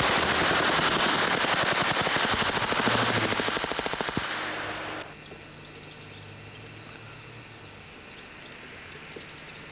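Rapid automatic gunfire, about ten shots a second, that stops about four seconds in. After it comes a quiet outdoor background with a few short bird chirps.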